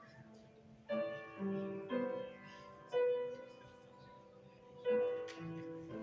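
Grand piano played slowly: notes struck about once a second with ringing sustain between, the strongest attacks about one, two, three and five seconds in.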